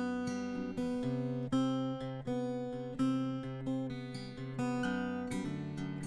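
Background music: acoustic guitar, plucked and strummed, with a new chord or note about every half second.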